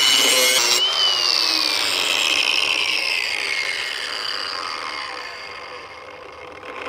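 Cordless angle grinder grinding the steel edge of a lawn mower blade in a sharpener jig, the grinding stopping under a second in. The motor then spins down, its whine falling slowly in pitch and fading over several seconds.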